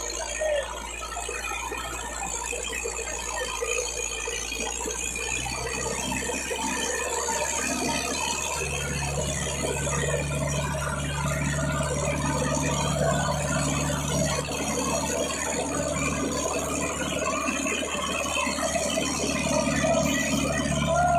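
Sonalika DI-750 III diesel tractor engine running hard under heavy load while pulling a double harrow through the soil. Its note becomes stronger and steadier about eight seconds in and gets gradually louder.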